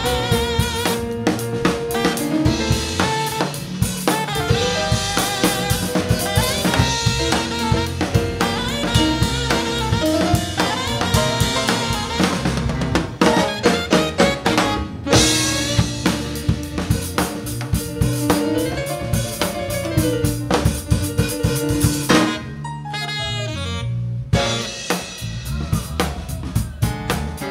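Live jazz-funk band playing: a saxophone carries the melody over a funk groove on drum kit, with a bass line and keyboard. The cymbals and drums drop out for a couple of seconds near the end before the groove comes back in.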